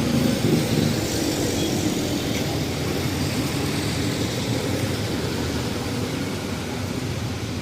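Steady street traffic noise: vehicle engines and tyres running by at a roundabout, easing off slightly toward the end.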